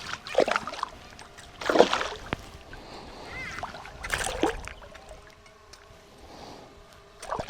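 Water splashing in a few short bursts as a hooked bass thrashes at the surface while it is reeled in.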